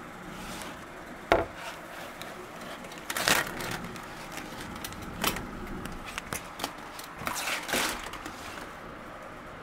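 Handling noise from a phone's microphone: a handful of sharp knocks and rubbing scrapes as the phone is moved about. The sharpest knock comes about a second in, and a couple of longer scrapes come near the end.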